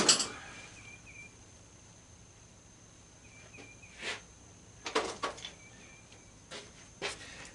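Knocks and clatter of tools and parts being handled during disassembly, with a loud clatter right at the start and a few smaller knocks and clicks later. Faint short chirps repeat in the background.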